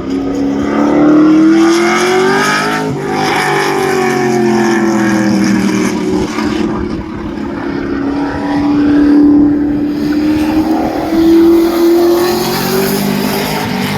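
Dale Truck's 427 V8 revving hard while warming up. Its pitch climbs over the first three seconds and drops sharply, then eases down and climbs again near the end.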